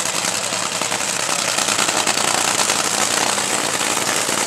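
Top Fuel dragster's supercharged nitromethane V8 running at idle: a loud, steady, rapid crackle.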